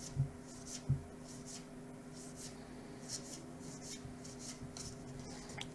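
Paper-stock trading cards being slid one by one off a stack in the hands, giving a run of soft papery swishes. There are two dull bumps in the first second, and a faint steady hum runs underneath.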